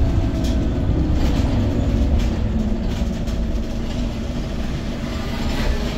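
Scania OmniCity city bus heard from inside the passenger cabin: a steady engine and road rumble with a few light rattles, easing slightly near the end.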